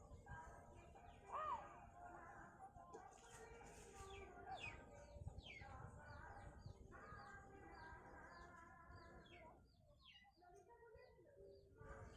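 Many small birds chirping faintly: a rapid run of short, repeated downward-sliding chirps, with one louder call about a second and a half in.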